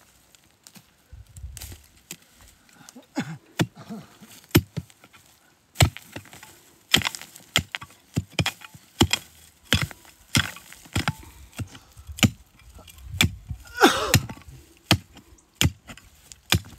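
A mattock chopping into stony soil and roots at the base of a shrub. The blows are sharp and irregular, about one or two a second, and begin a few seconds in.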